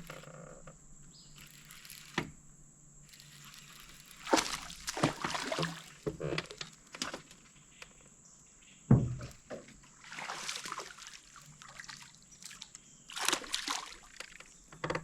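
Water splashing and sloshing in a few short bursts, with a single dull thump about nine seconds in.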